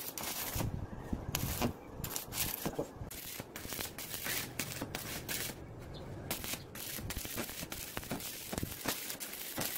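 Stick (arc) welding on steel tubing: the arc crackles in runs of a second or two, with short breaks where the arc is stopped and struck again, as tack welds are laid on the frame joints.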